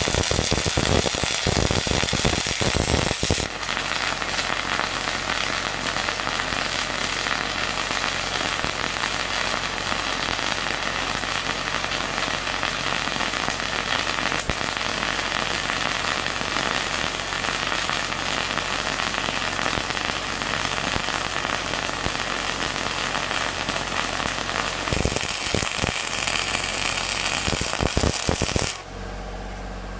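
Flux-cored arc welding with Lincoln NR232 .068 self-shielded wire from an LN25 wire feeder: a steady crackling, sizzling arc, harsher for the first few seconds and again near the end. The arc cuts off suddenly shortly before the end, leaving the steady hum of the engine-driven welder.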